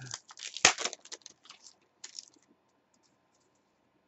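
A stack of trading cards being flicked and shuffled through in the hands: a run of crisp clicks and rustles, the loudest snap about two-thirds of a second in, stopping about two and a half seconds in.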